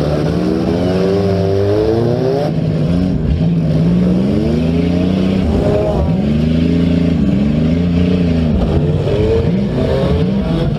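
Several demolition derby car engines revving up and down, overlapping, with pitch rising and falling every second or two.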